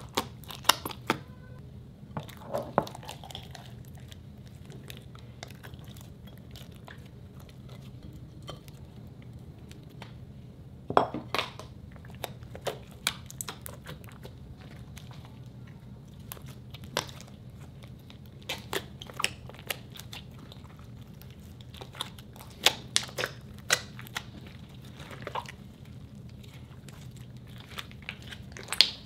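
Hands squeezing and kneading a large mass of fluffy slime, giving irregular sharp crackles and pops of air pressed out of it. The pops come in clusters about eleven seconds in, again past the twenty-second mark, and near the end, over a faint steady hum.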